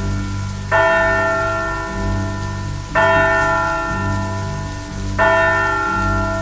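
A single large bell tolling slowly, struck three times about two seconds apart, each stroke ringing on and fading over a steady low drone: a funeral knell for a burial.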